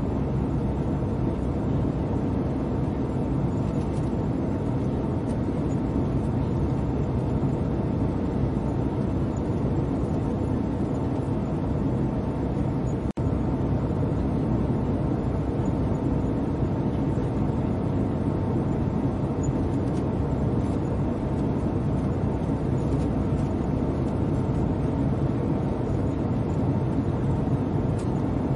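Steady cabin noise of an airliner in flight, an even mix of engine and airflow noise that is mostly low, with a faint steady hum above it. It cuts out for an instant about halfway through.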